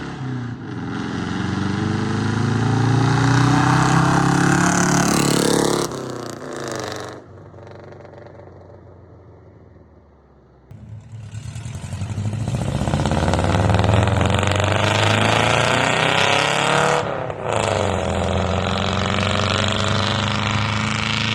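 Four-cylinder engine with a true dual exhaust accelerating hard, its pitch climbing through a gear, then dropping to a quieter, duller run for a few seconds. It pulls hard again with rising pitch, with a brief dip at a gear change near the end.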